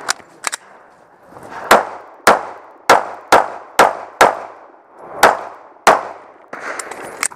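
Walther PPQ pistol fired eight times in quick succession, about one shot every half second, with a one-second pause after the sixth shot. Each shot has a short ringing echo.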